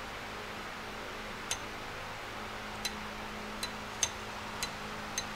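About six light, irregularly spaced metal clicks as a dial indicator on a magnetic base is set and its plunger loaded against a wheel hub's face, over a steady low hum.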